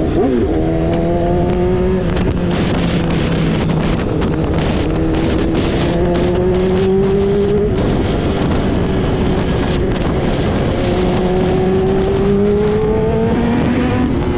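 BMW S1000RR inline-four idling at high cold-start idle through a full Akrapovic 4-into-1 exhaust. The engine note is steady and loud, its pitch slowly climbing and then dropping back twice.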